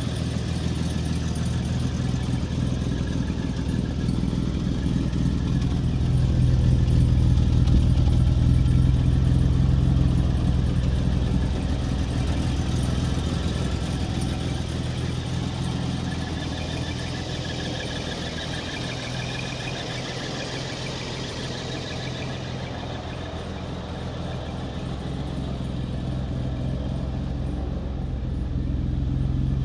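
BMW E3 3.3 L's M30 straight-six engine idling steadily, swelling louder for a few seconds then settling back.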